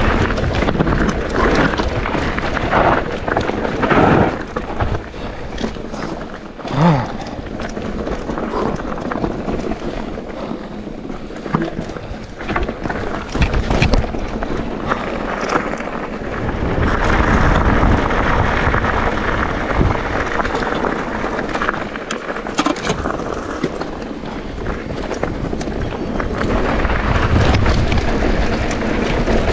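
Mountain bike riding down a dirt trail: steady tyre noise over the ground, with frequent knocks and rattles as the bike goes over bumps.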